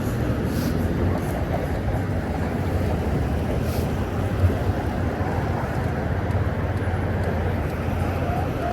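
Steady low rumble of a moving vehicle, with some wind noise on the microphone.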